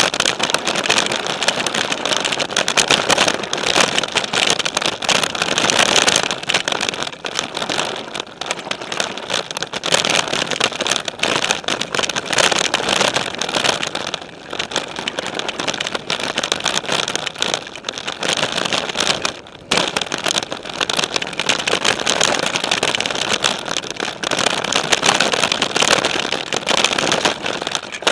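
Specialized Stumpjumper mountain bike riding a dirt singletrack, heard from a camera on the frame: a steady rush of tyre and trail noise mixed with dense, fast rattling of the bike. It dips briefly about two-thirds of the way through.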